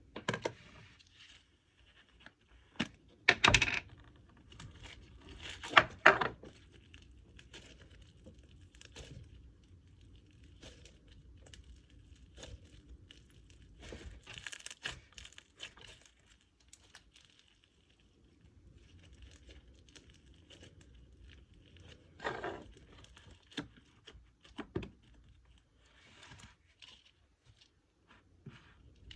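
Hands mixing a clay piece into a slime, kneading and stretching it: faint, irregular sticky crackling and tearing sounds, with a few louder short pops about three and a half, six and twenty-two seconds in.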